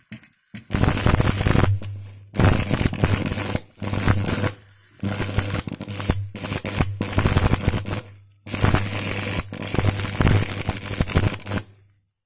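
Stick welding with a 3.2 mm electrode on a homemade arc welder rewound from a Lioa 3 kVA transformer core. The arc crackles over a low transformer hum and breaks off and restrikes about five times.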